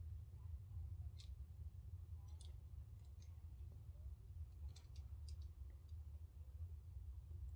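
Faint, scattered short high clicks, about eight of them, mostly between one and five and a half seconds in, over a steady low rumble.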